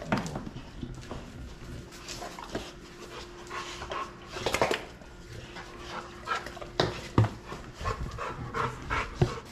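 American bully dogs panting as they move about, with scattered knocks.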